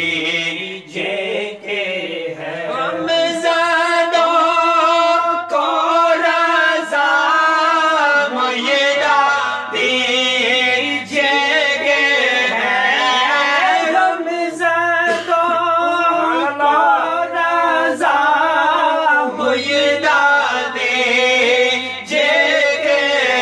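Men's voices singing an Urdu naat, a devotional poem in praise of the Prophet, unaccompanied and without instruments, in a slow melismatic chant.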